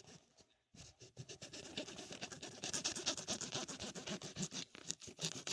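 Knife sawing through a dragon fruit: a quick run of scratchy strokes that starts about a second in and grows louder toward the middle.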